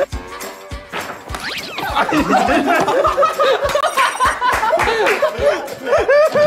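A group of young men laughing hard, in quick repeated bursts of laughter.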